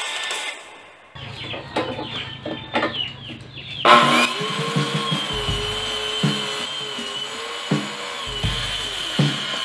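Handheld electric circular saw starting up about four seconds in and running steadily as it cuts through a 3/4 in plywood sheet, its whine wavering slightly and deepening in stretches as the blade loads in the cut.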